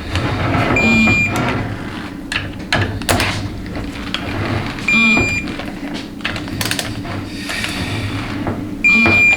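Electronic torque wrench beeping as valve body bolts are tightened to the 53 inch-pound target: three short high beeps about four seconds apart, with clicks and knocks of the wrench between them.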